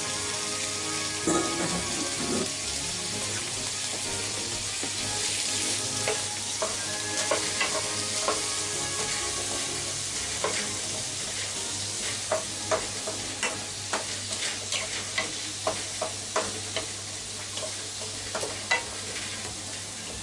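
Sliced onion and komatsuna sizzling in sesame oil in a frying pan, stirred with a wooden spatula. The spatula clacks against the pan again and again in the second half.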